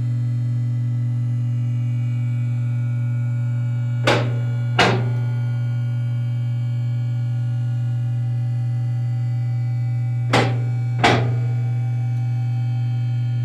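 A steady low hum throughout, with sharp knocks in two pairs, the two knocks of each pair under a second apart: one pair about a third of the way in, the other near the end.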